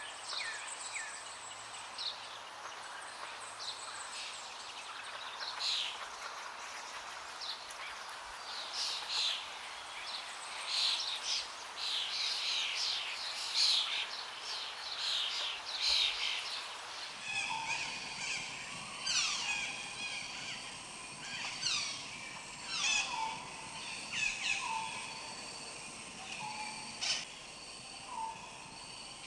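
Tropical birds calling: dense, overlapping high chattering calls, then an abrupt change about seventeen seconds in to a different bird's repeated falling whistles, about one every second and a half, with shorter low notes between.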